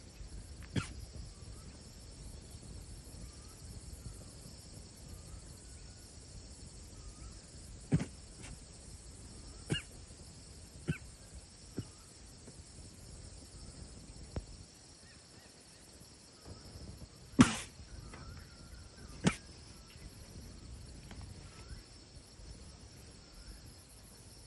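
A chital (spotted deer) coughing: about eight short, sharp single coughs, spaced irregularly a second to several seconds apart, the loudest about two-thirds of the way through.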